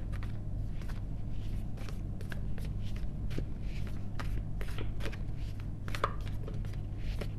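Scattered light taps and clicks at an irregular pace over a steady low hum, with one clearer tap about six seconds in.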